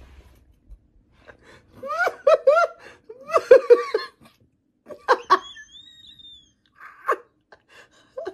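A person laughing hard in high-pitched bursts: a quick "ha-ha-ha", then longer fits with gasping breaths between them, and a thin high squeak partway through.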